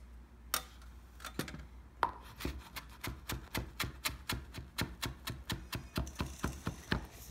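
Chef's knife chopping fresh mint leaves on a plastic cutting board: a few separate taps, then from about two seconds in a fast, even run of knife strokes, roughly four or five a second, as the rolled leaves are chopped fine.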